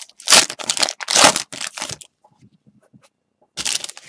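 Foil wrapper of a Prizm basketball retail card pack being torn open and crinkled by hand. There are two loud tears in the first second and a half, then softer rustling, a brief pause and one short crinkle near the end.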